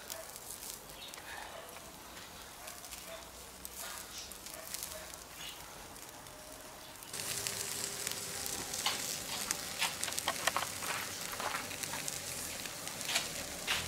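Whole carp sizzling on an oiled grill over hot charcoal, a fine crackle with scattered pops. About seven seconds in it gets louder, with sharper, more frequent crackles and pops.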